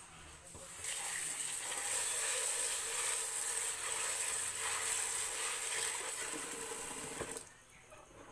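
Tap water running steadily into a container of popcorn kernels to rinse them. It starts about a second in and is shut off abruptly about a second before the end.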